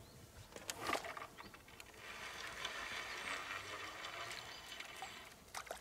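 Fixed-spool fishing reel being cranked for about three seconds, its rotor rattling steadily as line is wound in. A short knock about a second in.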